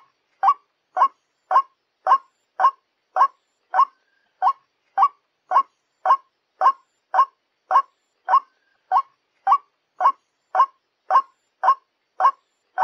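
White-breasted waterhen call: a steady series of short, harsh notes, about two a second, each at the same pitch and loudness.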